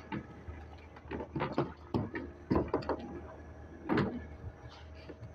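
Irregular knocks and thuds on a small boat's deck, about half a dozen, the loudest about four seconds in.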